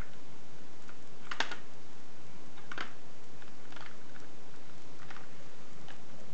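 Plastic blocks and a plastic shape-sorter box clicking and tapping as a baby handles them: a few scattered light clicks, the loudest about a second and a half in, over a steady hiss.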